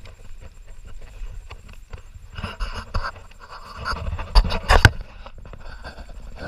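Rustling and scraping of dry brush against the paddle and gear while pushing through riverside scrub, with a few sharp knocks about four and a half seconds in.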